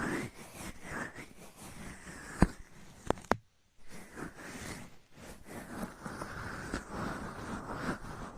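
Close-miked ASMR mouth sounds: wet, crackly lip and tongue noises, with a few sharp clicks around the middle followed by a brief gap.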